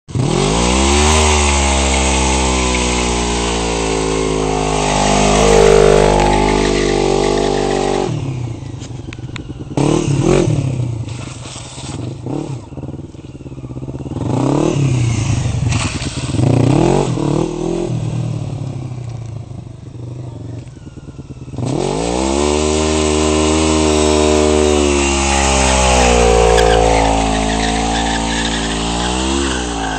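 Motorcycle engine held at high revs for a rear-wheel burnout, then a quieter stretch where the revs rise and fall again and again, then climbing and held high again for another burnout.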